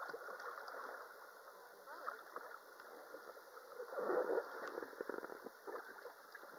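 Sea water sloshing and splashing close to the microphone at the water's surface, loudest about four seconds in.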